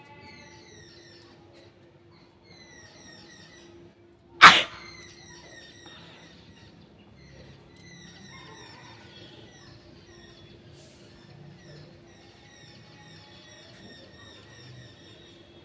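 A person's single sudden, loud blast of breath about four seconds in, the hard burst of a sneeze or forceful nose blow. Birds chirp throughout in the background.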